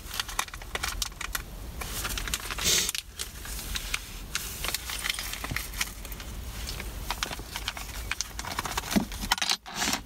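Small metal bolts clinking and jingling as they are handled and sorted by hand, with light rustling between the clicks.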